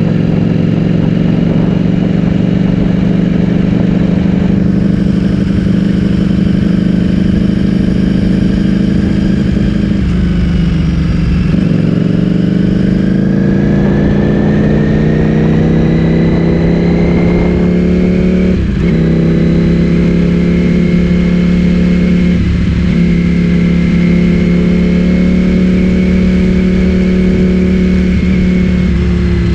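Ducati Streetfighter V4S's V4 engine through an Akrapovic full-system exhaust, ridden at steady revs, then easing off about a third of the way in and accelerating with rising pitch. Quick gear changes briefly cut the note twice in the second half.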